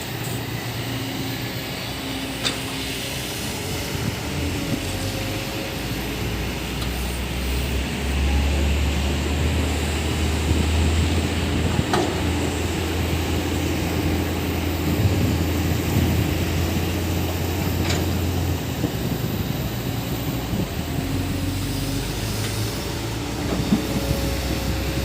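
Heavy diesel engine running steadily with a deep low hum that grows heavier from about 8 to 18 seconds in, with a few sharp clicks or knocks.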